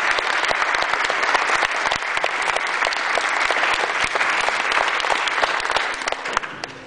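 Audience applauding: dense, sustained clapping from many hands that thins out and fades near the end.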